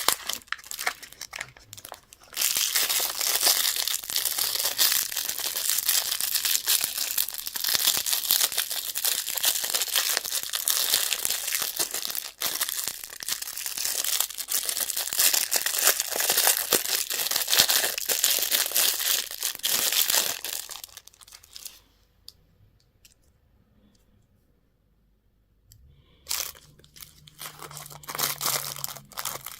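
Candy wrapper being torn open and crinkled, a dense run of crackling that stops about three-quarters of the way through, followed by a few more crinkles near the end.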